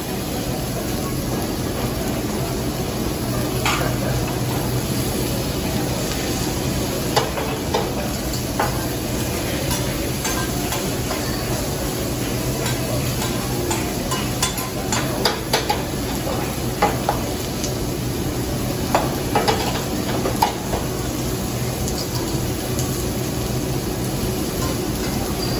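Steak, chicken, mushrooms and onions sizzling on a teppanyaki steel griddle, a steady frying hiss. A metal spatula scrapes and taps on the plate as the food is turned and chopped, with the clicks coming thickest a little past the middle.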